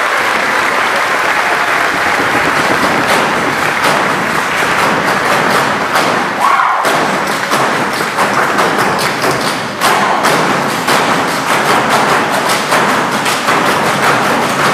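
Clogging taps of a troupe dancing in unison: fast, rhythmic metal-tipped shoe strikes on the stage floor, growing denser about three seconds in.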